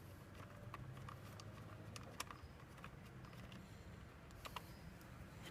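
Near silence with a handful of faint, scattered clicks and taps as the headlight and its bucket are handled and fitted together.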